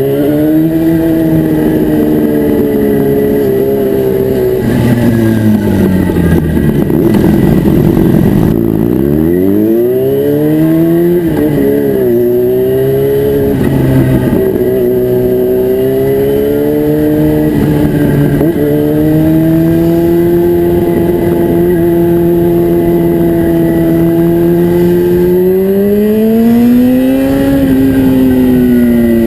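Yamaha FZ6's inline-four engine running through an aftermarket Atalla exhaust, its engine speed dropping and climbing several times with a deep dip and climb about midway, then holding steady before rising again near the end.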